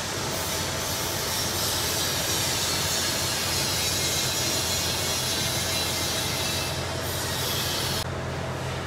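Automatic double-wire chain link fence machine running: a steady mechanical din, a strong hiss over a low hum. The hiss drops away sharply about eight seconds in.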